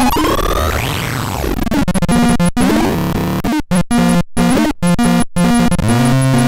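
Harsh electronic synthesizer tones from the "Evil Devil" sound device. A pitch sweep dies away in the first second, then buzzy stepped notes follow, cutting out and restarting abruptly several times in the middle.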